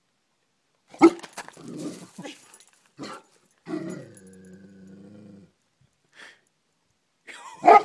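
Golden retriever giving a sharp bark about a second in, then a low growl held for nearly two seconds, and another bark near the end.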